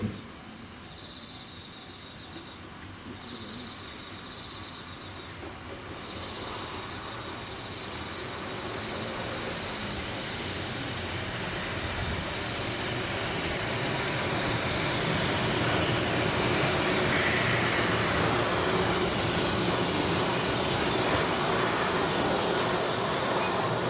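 A train approaching on the rails, its running noise growing steadily louder over about fifteen seconds and then holding loud. Insects chirp steadily early on.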